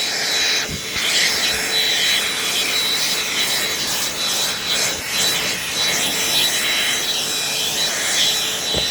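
Hand vacuum with its crevice tool running steadily with a high motor whine, the nozzle rubbing and scraping over couch upholstery.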